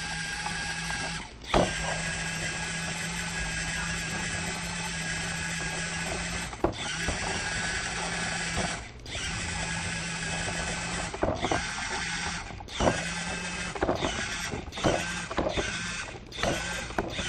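Jabuti Edu educational robot's small geared drive motors whirring with a steady hum as it drives across a floor. The whirring stops briefly with a click every few seconds and starts again as the robot works through its programmed moves.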